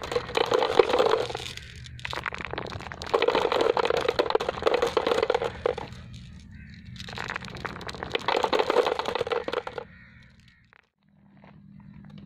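Glass marbles rolling down a dry dirt track, a gritty crackle full of small clicks. It comes in three waves of two to three seconds each, then dies away.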